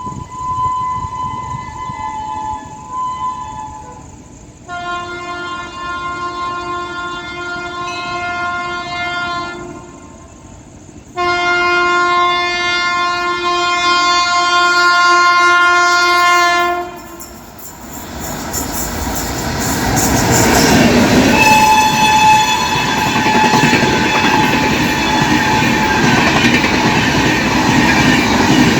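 Indian Railways WAP-7 electric locomotive sounding its horn as the express approaches: a fainter honk at first, then two long blasts of about five seconds each, around 5 and 11 seconds in. From about 18 seconds the train passes at around 110 km/h, with loud rushing and the clickety-clack of wheels over the rails.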